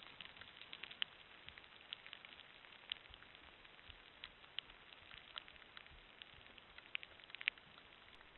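Rain falling: a faint steady hiss with sharp, irregular drop ticks scattered through it, several a second.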